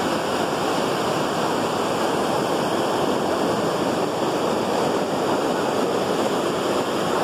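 Lake water pouring over a concrete weir and churning white down the channel below: a steady rushing of water.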